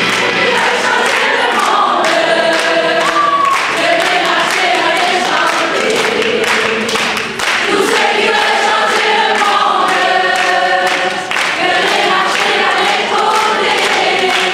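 A choir singing a song on the music track, many voices together.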